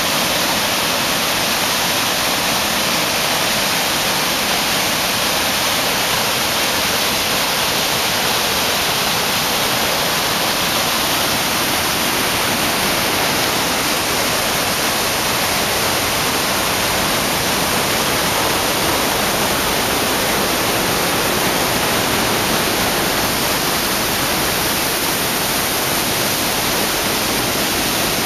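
River water rushing down through a narrow rock gorge in cascades and falls: a loud, steady, unbroken roar of white water.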